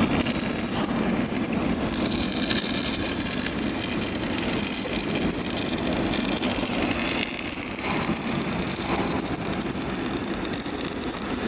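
Stick-welding (SMAW) arc crackling and sizzling steadily as the electrode burns along the joint.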